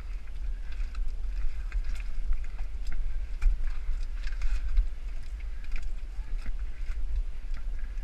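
Rumbling and rubbing on the microphone of a camera carried through a dark crawl tunnel, with scattered scrapes and clicks from the crawling.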